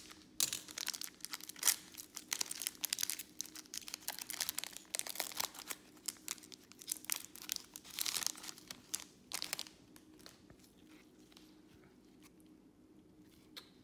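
Foil wrapper of a Panini Select trading-card pack crinkling and tearing as it is opened by hand, a dense run of crackles that stops about ten seconds in.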